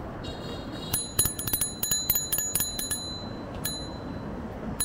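Bicycle bell rung rapidly in a run of quick rings for about two seconds, then struck singly twice more near the end, over steady road noise.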